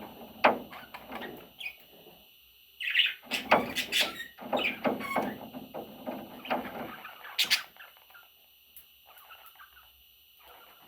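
Budgerigar chirping and chattering in short, irregular bursts, mixed with small clicks, busiest in the middle and quieter near the end.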